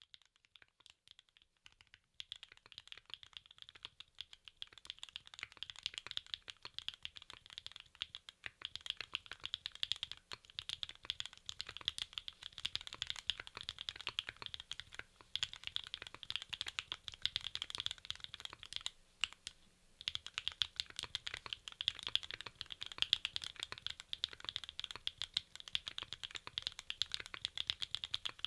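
Steady fast typing on a QK65 R2 gasket-mounted mechanical keyboard with Sillyworks Slay Type S linear switches, PBT keycaps and an aluminium plate: a dense run of sharp keystrokes, sparse at first, with a brief pause about two-thirds of the way through.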